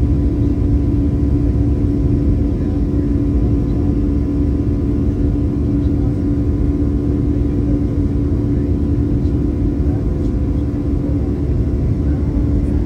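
Airliner's jet engine running steadily, heard from inside the cabin beside the wing: a constant low rumble with a steady hum.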